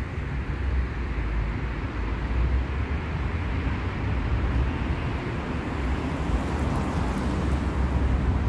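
City street traffic noise: a steady low rumble of vehicles, with the sound of a passing vehicle growing louder in the second half.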